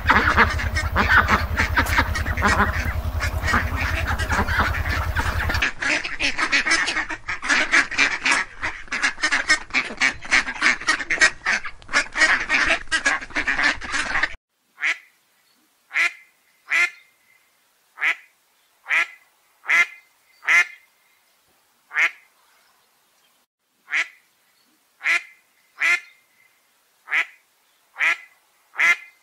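Ducks quacking in a flock: dense, overlapping calls, with a steady low hum under the first few seconds. About halfway through it cuts to a single duck quacking alone, roughly one short quack a second.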